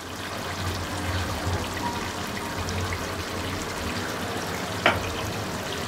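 Chicken in tomato gravy simmering in an aluminium karahi, a steady bubbling sizzle over a low hum, with one short tap about five seconds in.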